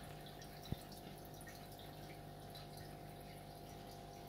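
Faint aquarium bubbling and water trickle from the tank's aeration and filter, with scattered small bubble pops over a steady low electric hum. One sharp click sounds under a second in.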